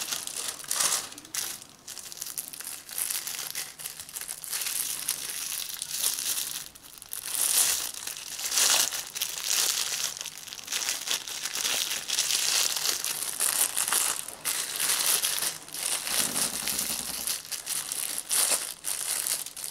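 Clear plastic wrapping rustling and crinkling in uneven surges as it is worked and pulled off a knife. The plastic clings to the knife's heavily oiled blade.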